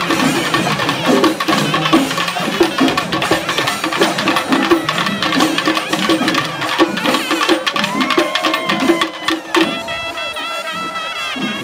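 Chenda drums played fast and dense in a temple-festival percussion ensemble. Near the end a pitched wind instrument comes in over the drumming, holding and bending its notes.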